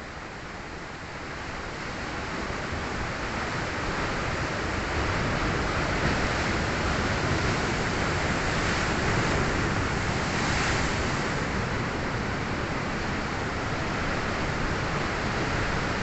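Sea waves surging and breaking against rocks, a continuous rushing swell that builds over the first few seconds and then holds steady, with some wind on the microphone.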